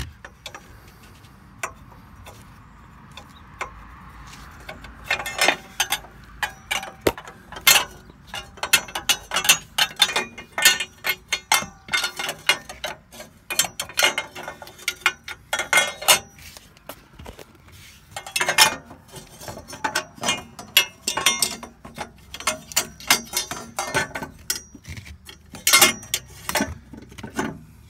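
Metal transmission dipstick tube clicking, tapping and scraping against the exhaust and nearby underbody parts as it is worked into place by hand. The knocks are many and irregular, starting about five seconds in after a quieter stretch.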